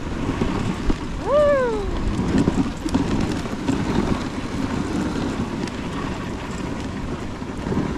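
Dog sled running over a snow trail: a steady rumbling hiss of the runners on snow, with wind buffeting the microphone and a few small knocks. About a second in, one short cry rises and then falls.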